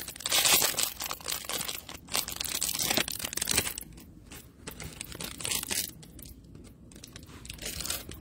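Plastic wrapper of a trading-card pack crinkling and tearing as it is ripped open, then quieter rustling as the stack of cards is pulled out and handled.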